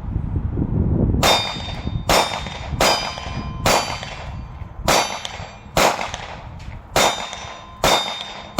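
Glock 43 9 mm pistol being fired in slow, steady single shots, eight in all, about one a second, each shot leaving a ringing metallic tail.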